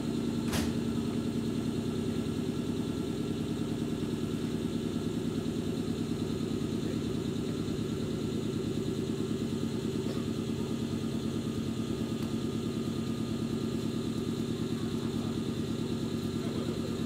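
Wakayama Electric Railway 'Ichigo' 2270-series electric train standing at the platform, its underfloor auxiliary machinery running with a steady, fast-pulsing hum. A single sharp click sounds about half a second in.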